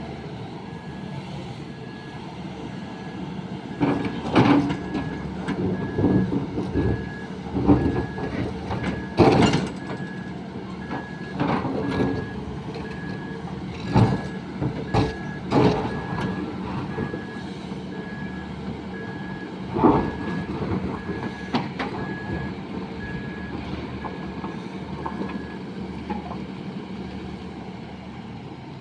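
Sany excavator's diesel engine running steadily, with about a dozen loud clanks and thuds from the machine and its load. A backup alarm beeps about once a second from about two seconds in until near the end.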